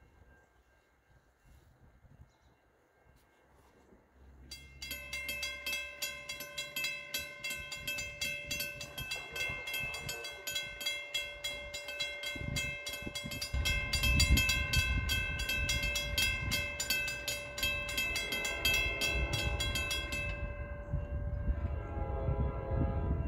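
Railroad grade-crossing warning bell ringing rapidly and steadily, starting about four seconds in as the signal activates and stopping near the end once the gates are down. A low rumble of the approaching train builds from midway, with a train horn near the end.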